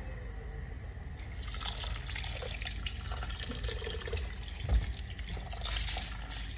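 Water poured from a kettle into a pot of rice, splashing and trickling steadily. The pour picks up about a second and a half in, and there is a single dull knock about five seconds in.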